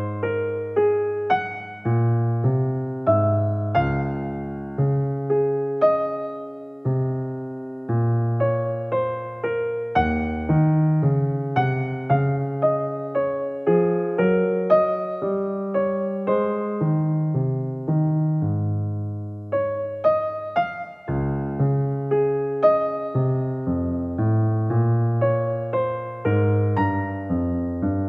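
Background piano music: a gentle melody of struck notes, each one fading, in a steady, unhurried rhythm.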